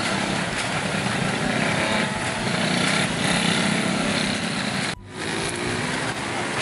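Small motorcycle engines running close by in passing traffic, a steady drone. About five seconds in the sound drops out briefly, then comes back with an engine rising in pitch.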